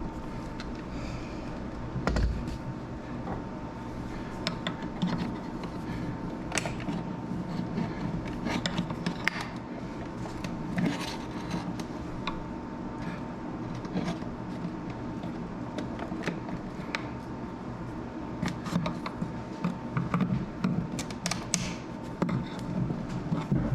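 Scattered small clicks, taps and rubbing from hand work on a wall outlet and its screws, over a steady background hum.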